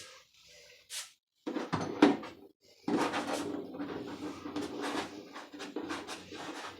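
Handling noise while working at a door: a few separate clicks and knocks, then from about three seconds in a continuous scraping with many small clicks over it.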